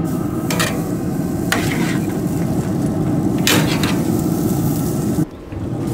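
Thick dry-aged pork chops sizzling as they sear on a 320-degree cast-iron grill grate, with three sharper bursts of sizzle or contact, about half a second, a second and a half, and three and a half seconds in. The sound dips briefly near the end.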